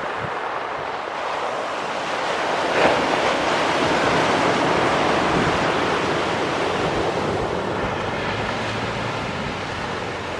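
Airbus A340-300's four CFM56 turbofans at takeoff thrust: a broad, distant roar that swells as the airliner lifts off and climbs, mixed with surf breaking on the seawall and wind on the microphone.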